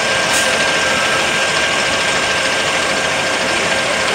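Double-decker tour bus engine running steadily close by: a loud, even drone with a thin steady high whine through it.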